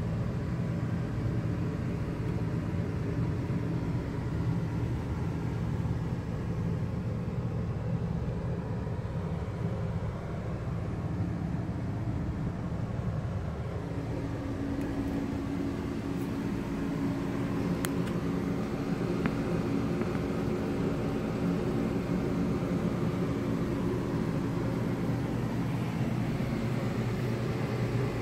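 Polti Cimex Eradicator dry-steam machine running in use: a steady low mechanical hum with a constant tone, a slightly higher tone joining about halfway through.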